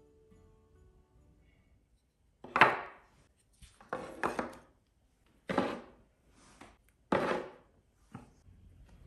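Small wooden offcut blocks set down and shifted on a hard shelf: a series of about seven irregular wooden knocks with short scrapes. The first knock is the loudest.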